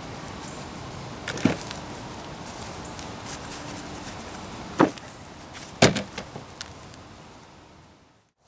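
A few sharp knocks and smaller clicks from digging and handling sweet potatoes in a soil-filled container, about three loud ones spread over several seconds. The sound fades out to near silence just before the end.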